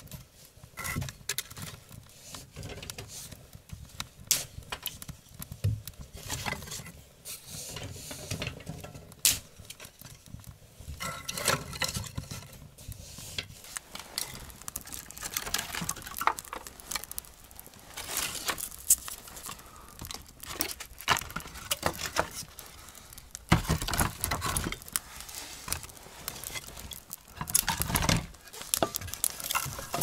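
Wood fire of kindling sticks crackling and popping in a brick stove's firebox, an irregular run of small cracks and snaps. Near the end there is louder, denser clatter of sticks being handled in the fire.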